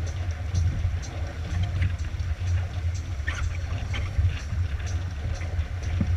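Sailboat hull driving through waves at speed: rushing water and spray splashing along the side, over a steady low rumble.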